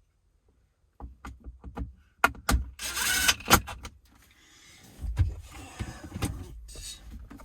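Hard plastic interior trim being handled and fitted: a run of clicks and knocks with two sharp loud hits, a brief burst of rustling, then softer shuffling and scraping.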